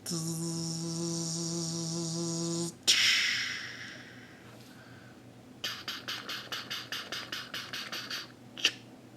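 A steady horn-like tone held for about two and a half seconds, then a sharp crash with a hiss that dies away over about a second. Later comes a run of quick, even clicks, about five a second, as toy vehicles and blocks are played with.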